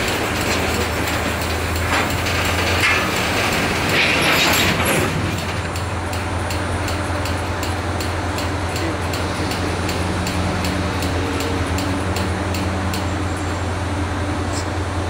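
Empty steel hopper cars of a slow freight train creak and screech as they come to a stop, with the loudest screech about four to five seconds in. After that the cars stand, and a steady low hum goes on with faint, regular ticking.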